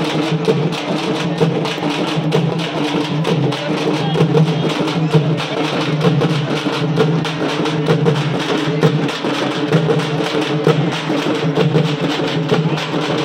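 A group of hand-held frame drums (dappu) is beaten with sticks in a fast, steady, loud beat. A sustained low pitched sound runs beneath the drumming.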